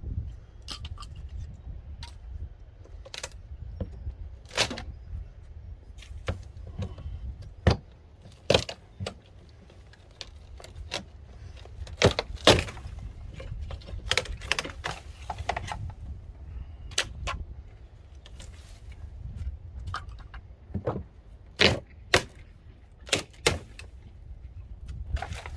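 Scattered sharp knocks, clicks and rattles of hand demolition on an old wall, pulling off old siding with nails in it, over a low steady rumble.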